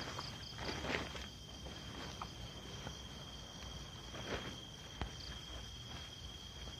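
Insects calling in a steady high trill, over rustling of nylon tent fabric being handled. The loudest rustles come about a second in and about four seconds in, and there is a sharp click about five seconds in.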